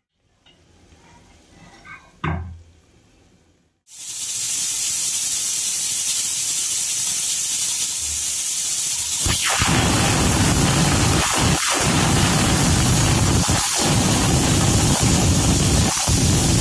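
Aluminium stovetop pressure cooker whistling: a loud steady hiss of steam venting past the weight starts about four seconds in, turning rougher and deeper from about nine seconds, with a few brief dips. The cooker has come up to pressure. A soft knock about two seconds in.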